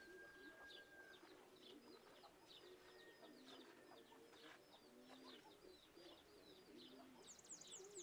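Faint birdsong: a continuous run of short, high chirps repeating several times a second, with a few low dove coos among them.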